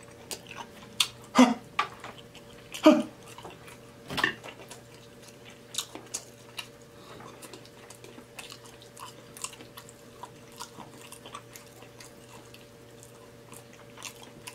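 Close-up chewing and wet mouth smacks of a man eating syrupy banana nut pancakes with walnuts, in scattered clicks. The loudest smacks come in the first four seconds, then quieter ones, over a faint steady hum.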